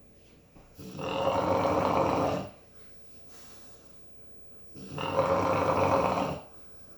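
Snoring: two long snores about four seconds apart, each lasting around a second and a half, with quiet breathing between them.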